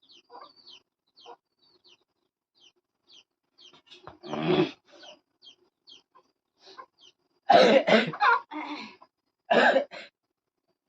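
A person coughing in three bouts, the middle one several coughs in a row, from the chilli heat of spicy panipuri. Faint bird chirps sound throughout.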